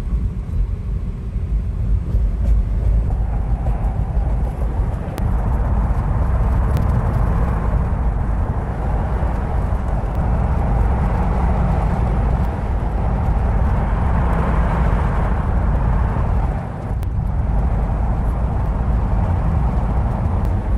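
Road and tyre noise of a Tesla Model 3 driving through a road tunnel, heard in the car's cabin. The electric car has no engine sound, only a steady deep rumble with a tyre hiss that swells for a few seconds midway.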